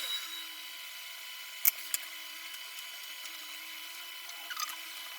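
A few sharp clicks of small hand tools at the workbench, a pair about a second and a half in and softer ones near the end, over a steady hiss with faint high-pitched whine.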